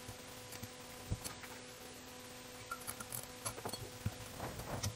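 Faint small metallic clicks and taps of steel studs and nuts being handled and threaded into a Weber 40 IDTP carburetor body, scattered at first and bunching up near the end, over a faint steady hum.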